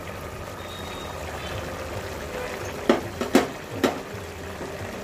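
Spinach and mutton simmering in a pot in the water the spinach has released, a steady wet bubbling. A few sharp knocks about three seconds in, from the wooden spoon against the pot.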